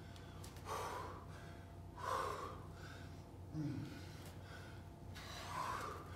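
A man breathing hard from exertion: four forceful exhales about a second and a half apart, one with a short grunt in it.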